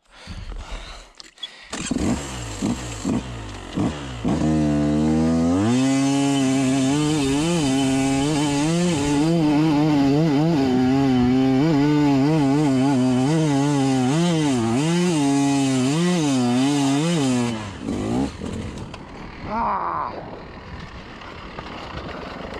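2020 Beta 200RR two-stroke dirt bike engine on a steep hill climb. It gives a few short revs first, then climbs to a loud, high, steady run held for about thirteen seconds, its pitch rising and falling with the throttle. It then falls away, with one more short rev near the end.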